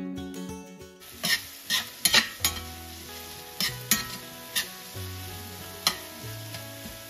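Ground beef and onions sizzling in a frying pan while a utensil stirs them, with irregular sharp clicks of the utensil against the pan. Acoustic guitar music plays for about the first second, then stays faintly underneath.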